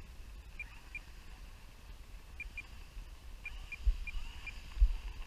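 Wind buffeting the microphone with a low rumble, strongest in two gusts near the end. Short high chirps sound about eight times, mostly in pairs.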